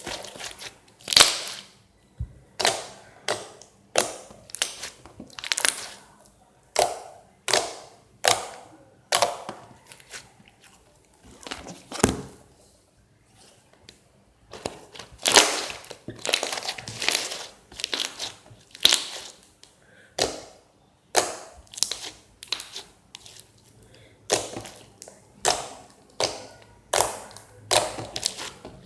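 Hands squishing and folding a thick, runny slime, giving a series of short popping squelches, roughly one a second, with a pause of about two seconds midway.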